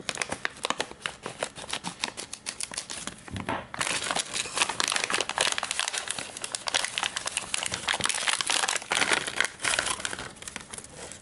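Plastic packaging bag crinkling and rustling in the hands as a small electric retractable landing gear unit is unpacked, with dense crackles that grow louder and busier after about four seconds.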